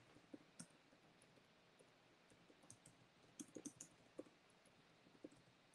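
Near silence with faint scattered clicks and taps, including a small quick cluster about three and a half seconds in.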